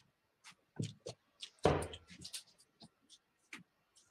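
Steel-tip darts being pulled out of a bristle dartboard: a run of short sharp clicks and knocks, with one heavier knock about halfway through.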